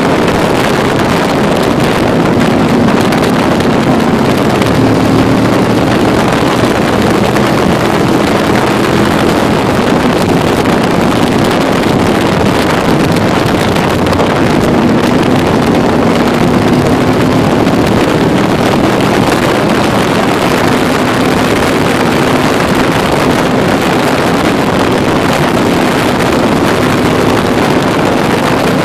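Can-Am Spyder three-wheeled motorcycle running at road speed, its engine note shifting in pitch now and then with the throttle, under heavy wind noise on the microphone.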